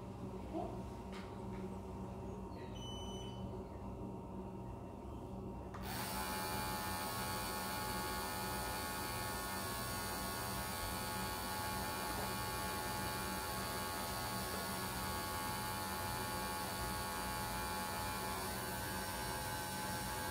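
Electric dog grooming clippers running: a low steady hum at first, then about six seconds in a bright, even buzz comes on and holds steady.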